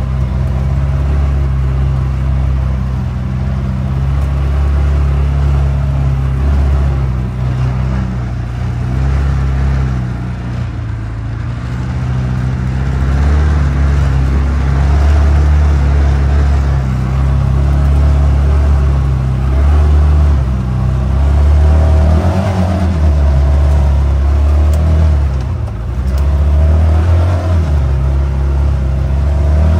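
CFMoto UForce 600 side-by-side's single-cylinder engine running under load, its pitch rising and falling again and again with the throttle as it pushes through heavy wet snow.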